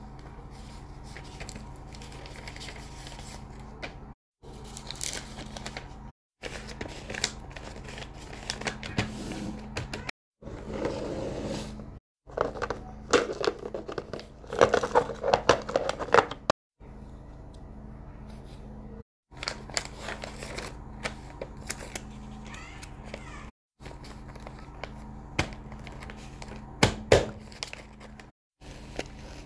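Hands handling paper envelopes and plastic packaging: rustling and crinkling with light taps and sharp clicks, over a low steady hum. The sound drops out briefly about eight times at edits.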